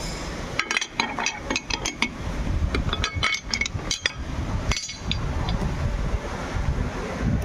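A quick irregular series of light metallic clinks and taps with a short ring to them, thinning out after about four seconds, over a steady low rumble.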